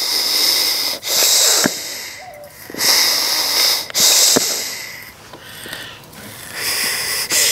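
Bellows of an Apisolis vapor bee smoker pressed slowly by hand, each stroke pushing a hissing puff of air and vapor out of the spout; about five puffs in a row.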